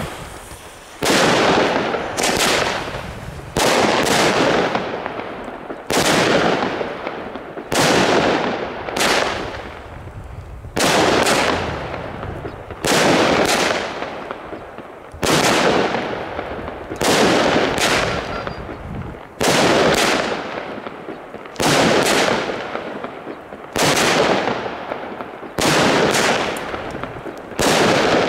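Chained consumer firework batteries (cakes) firing shot after shot, roughly one every two seconds, a few in quick pairs. Each shot is a sharp bang that dies away over a second or so.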